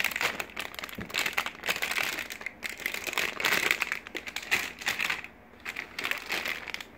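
Clear plastic bags around plastic model kit runners crinkling and rustling as they are handled and shifted, with a short lull about five seconds in.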